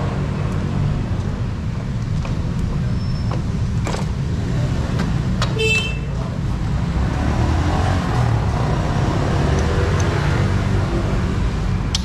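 Steady rumble of road traffic and motorbike engines going by, with a few light clicks and a brief high beep about six seconds in.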